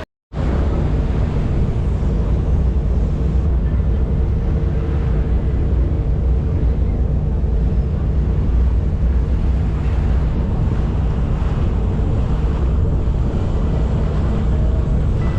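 Steady low engine rumble of a lake cruise boat under way, with wind buffeting the microphone.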